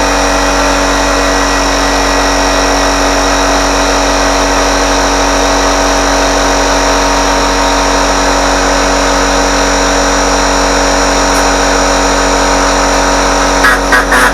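A motor running at a steady, unchanging speed, with a few sharp clicks near the end.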